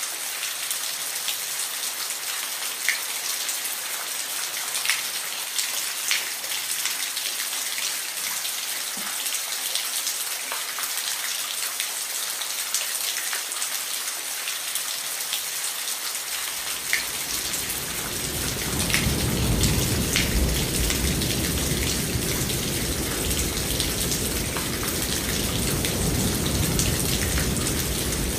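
Steady rain falling, with many single drops ticking on a hard surface. A little past halfway, a long low rumble of thunder builds and rolls on beneath the rain.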